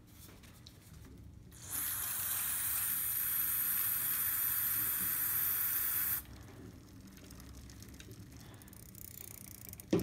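Aerosol can of spray lubricant hissing in one continuous spray of about four and a half seconds. It starts about two seconds in and cuts off suddenly.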